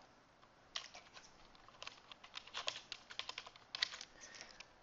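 Faint typing on a computer keyboard: irregular keystroke clicks in short runs, starting about a second in.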